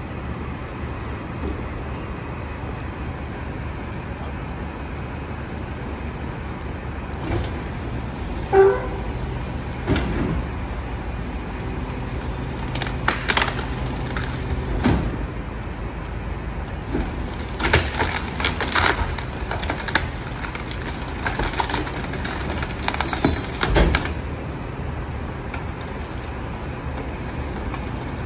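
Rear-loader garbage truck running steadily while its hydraulic packer blade crushes a sofa in the hopper: a string of cracks, knocks and creaks of breaking furniture frame, with a brief high squeal near the end of the crushing.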